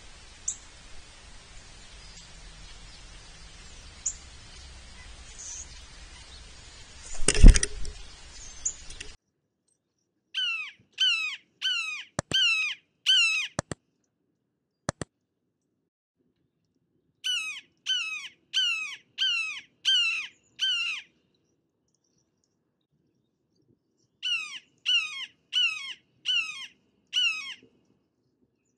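Red-shouldered hawk giving three series of its loud 'kee-ahh' call, about six calls a series, each call sliding down in pitch. Before them, a steady hiss with one loud thump about seven seconds in.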